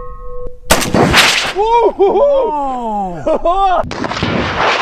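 The last of a struck oxygen tank's metallic ring, then a Dragunov 7.62x54R rifle shot about a second in. Rising-and-falling whooping tones follow, and near the end a loud rush of noise as a full oxygen tank is hit and bursts into flame.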